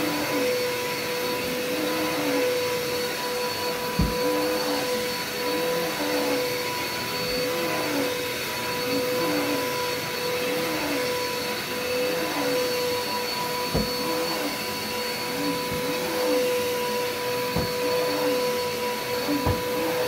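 Red upright vacuum cleaner running on carpet, a steady high motor whine over a lower hum that swells and dips about once a second as it is pushed back and forth. A few short knocks come through.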